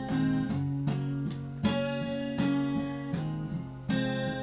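Acoustic guitar strumming chords in a steady rhythm with no singing: the instrumental bars between verse and chorus of a country song.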